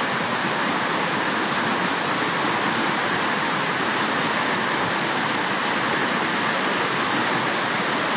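Water pouring over a dam spillway and churning into whitewater below, a steady, unbroken rush.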